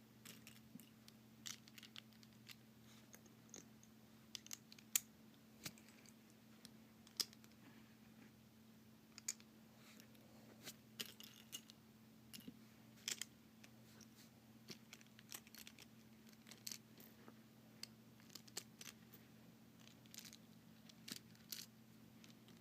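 Faint, scattered clicks and taps of the plastic pieces of an Aosu GTS2 M 4x4 speed cube being handled and pressed together during assembly, over a faint steady low hum.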